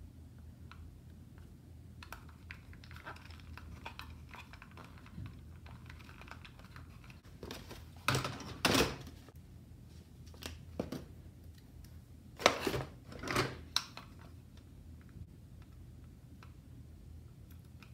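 Hard plastic toy parts clicking and knocking as they are handled in a cardboard box, with a paper decal sheet rustling. Two louder spells of rustling come near the middle.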